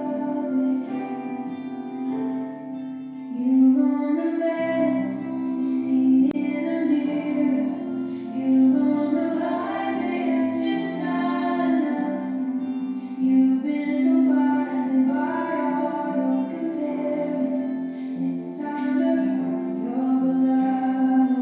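Music playing: a song with singing over plucked string accompaniment.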